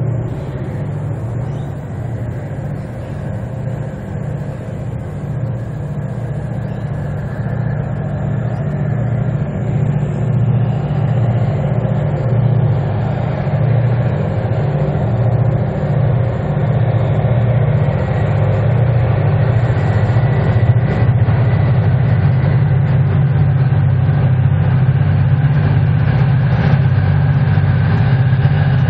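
Three CL class diesel-electric locomotives working hard up a gradient, their EMD two-stroke diesel engines making a deep, steady throb that grows louder as the train approaches.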